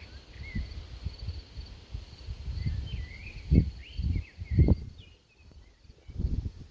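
Outdoor ambience: birds chirping and a steady high insect trill, with irregular low gusts of wind buffeting the microphone, strongest about three and a half and four and a half seconds in.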